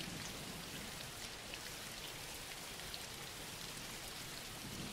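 Steady rain falling, an even hiss with a few faint sharper drops standing out.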